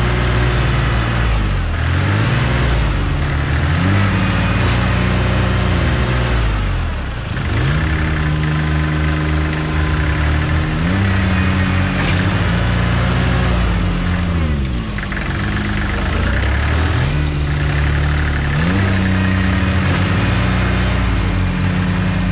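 Allis-Chalmers 5015 compact tractor's diesel engine revving up and settling back again, over and over, as it pulls under load on a chain to drag a stuck garden tractor out of mud.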